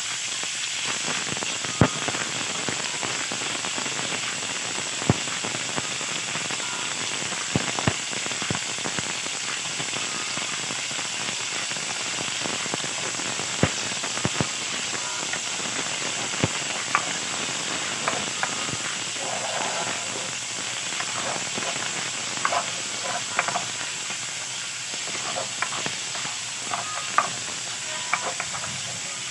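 Diced pork sizzling in a hot stainless steel pan with a steady frying hiss. Occasional sharp clicks come from a cooking spoon knocking and scraping the pan as the meat is stirred.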